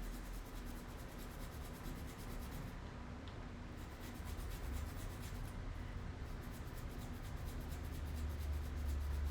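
Rapid rubbing and scrubbing strokes on a phone circuit board, cleaning it after soldering a USB-C charging port, over a steady low hum.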